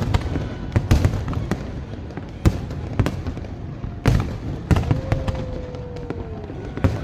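Fireworks bursting overhead in about a dozen sharp, irregularly spaced bangs over a steady background din. A thin whistle is held for about a second and a half, about five seconds in.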